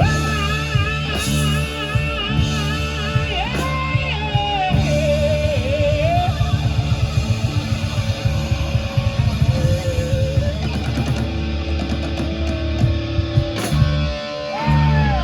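Rock band playing: an electric guitar lead with sliding, bending notes over bass and drums.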